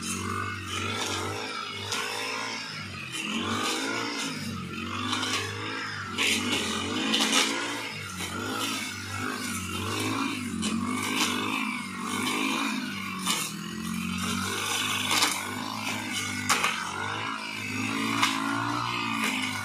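Backpack brush cutter's small petrol engine running and revving up and down again and again as the cutting head is swung through tall grass and weeds, with scattered sharp ticks.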